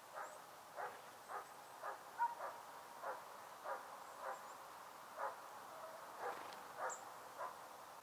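An animal's short calls, faint and repeated about twice a second, a dozen in all, with a few thin high chirps above them, one plainer near the end.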